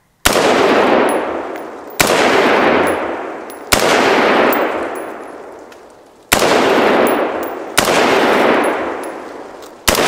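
Colt AR-15 A2 Sporter II rifle firing six semi-automatic .223 shots, spaced about one and a half to two and a half seconds apart. Each shot is followed by a long echo that dies away before the next.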